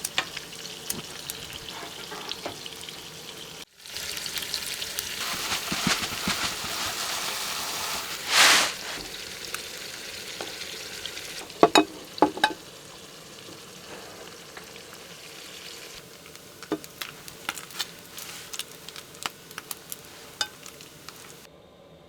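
Food sizzling and frying in a pan, with the clicks and scrapes of a utensil stirring it. There is a brief louder hiss about eight seconds in and a few sharp knocks around twelve seconds, and the sound changes abruptly several times, as if between separate shots.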